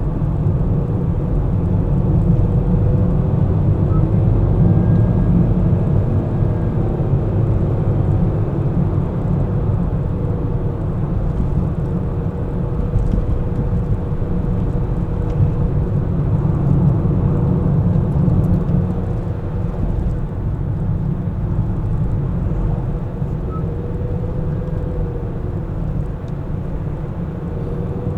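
Car driving along: a steady low rumble of road and engine noise, with a faint tone that drifts gently up and down.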